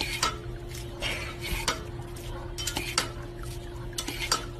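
Dog pawing the plastic pedal of a hose-fed dog water fountain: irregular sharp plastic clacks and rattles as the pedal is pressed, with water spurting, over a steady faint hum.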